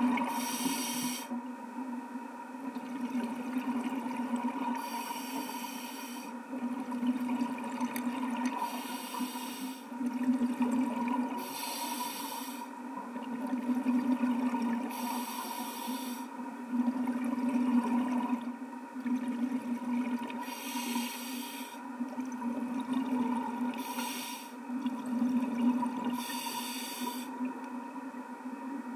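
Scuba regulator breathing heard underwater: a hiss with each inhalation, about every three to four seconds, alternating with the low rush of exhaled bubbles, over a steady hum.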